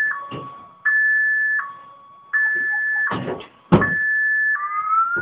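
Car alarm sounding: a steady tone switching back and forth between a higher and a lower pitch, each held under a second, then changing to a rising wail near the end. A couple of sharp knocks come about three and three and a half seconds in.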